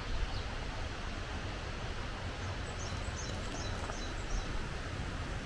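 Steady outdoor background noise with a low rumble. About halfway through, a bird gives a quick run of about five high chirps.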